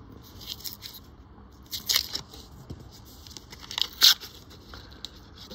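Paper wrapper of a $20 roll of Australian $1 coins being torn open by hand: short crackling tears and crinkles, a few seconds apart, the sharpest about four seconds in.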